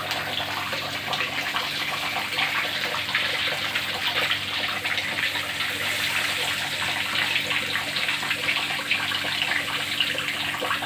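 Pieces of bird breast frying in hot oil, sizzling and crackling steadily.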